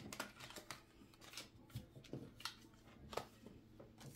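Faint, irregular clicks and rustling of a deck of cards being shuffled and handled.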